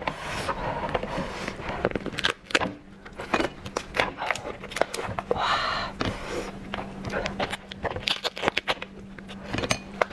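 Irregular clicking, crackling and scraping of a cooked lobster's shell being handled and broken apart by hand, with a brief rustle about halfway through.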